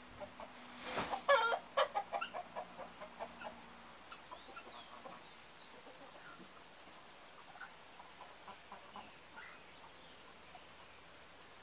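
Poultry clucking: a quick run of short clucks about a second in, loudest at first and fading out over two or three seconds, followed by faint, scattered high chirps.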